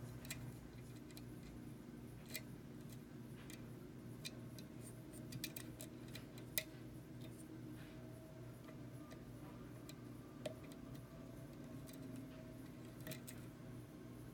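Faint, irregular clicks and ticks of a lock pick working the pins of a challenge lock under tension, a few every couple of seconds, over a steady low hum.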